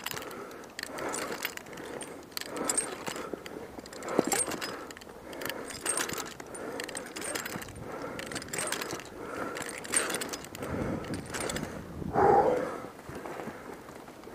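Handled rope ascender sliding up a climbing rope and its cam catching, with irregular clicks and knocks of metal climbing gear and rope rubbing against the trunk. A short louder sound comes near the end.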